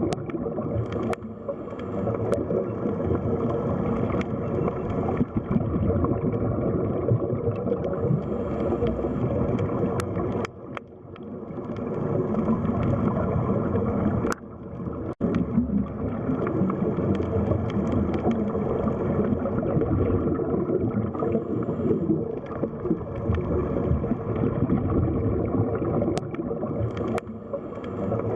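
Underwater ambience of the sea floor: a steady low wash of water with gurgling and a few faint clicks. The sound dips briefly about ten seconds in and again around fifteen seconds in.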